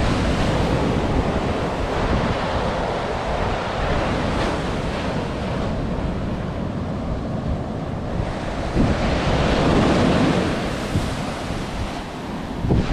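Ocean surf breaking and washing up the beach, with wind buffeting the microphone; a wave surges louder about nine seconds in.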